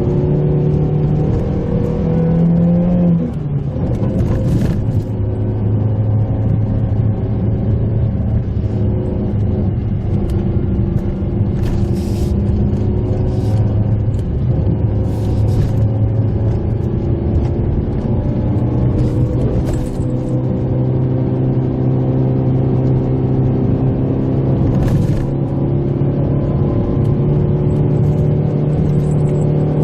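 Mitsubishi Pajero Mini's engine running as the car drives, its pitch climbing and then dropping about three seconds in and shifting gently after that, with scattered short sharp knocks.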